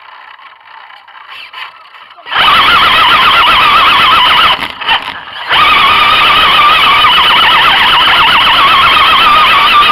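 Electric motor and gearbox of an RC rock crawler whining loudly close by, the pitch wavering as the throttle changes. It starts about two seconds in, cuts out briefly around the middle and picks up again.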